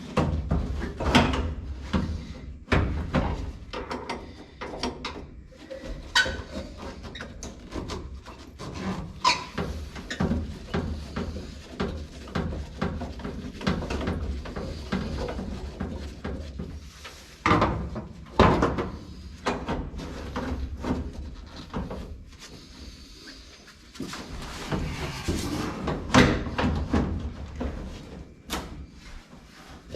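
Irregular metal bangs, clanks and scraping from a broken window regulator being knocked and worked loose inside the steel door of a 1955 Chevrolet 210. The hardest knocks come about a second in, around 17 to 18 seconds, and around 26 seconds.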